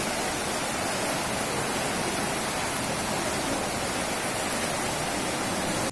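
Fast-flowing floodwater rushing past, a steady even noise that does not change.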